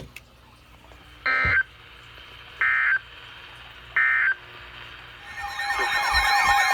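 Emergency Alert System end-of-message code: three short, identical buzzy SAME data bursts about a second and a half apart, signalling the end of the alert. Near the end, a louder alert tone fades in.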